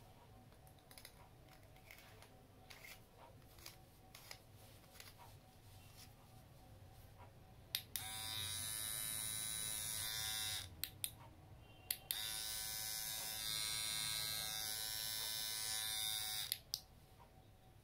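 Laforte cordless hair trimmer buzzing: switched on with a click for about three seconds, off, then on again for about four and a half seconds. Before that, light clicks and handling sounds as the battery is fitted and the end cap screwed on.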